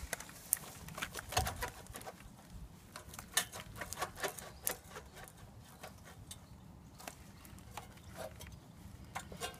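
Irregular light clicks and taps as a hand handles a steel wheel clamp locked onto a car wheel, a few slightly louder knocks among them.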